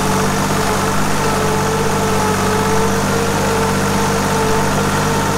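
Ditch Witch RT40 ride-on trencher's engine running steadily as it drives along the trench, heard from the operator's seat, with a steady higher whine over the engine note.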